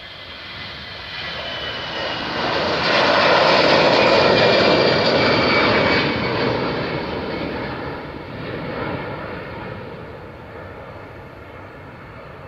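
Airbus A320-214's CFM56-5B turbofan engines at take-off thrust as the jet lifts off and climbs past. The sound swells to a peak about three to six seconds in, with whining tones falling in pitch, then fades as the aircraft climbs away.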